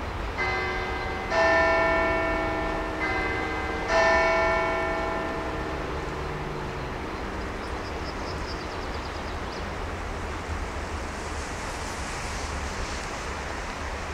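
Two bells of different pitch struck alternately, four strikes in all, each ringing on and dying away, over the steady low rumble of a train on the line.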